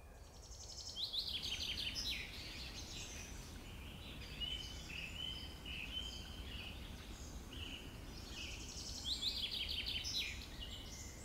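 Wild songbirds singing: a song of rapid descending notes about a second in, repeated near the end, with shorter whistled notes from other birds between them, over a low steady rumble.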